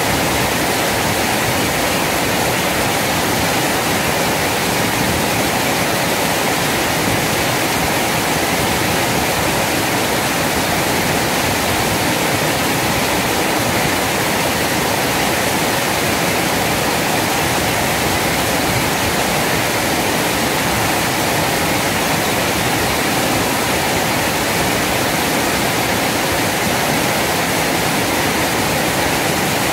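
A small waterfall pouring over a weir into a fast river: loud, steady rushing of falling and churning water.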